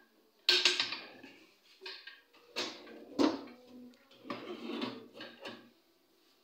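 Kitchen cabinet drawers and pull-out steel wire baskets being slid open and shut: a string of clattering slides and knocks, the loudest about half a second in.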